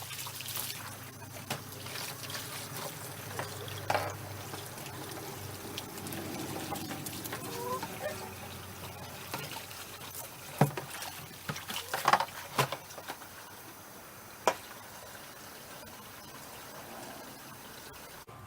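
Water trickling and pouring steadily, with a few sharp clicks or knocks, most of them in the second half.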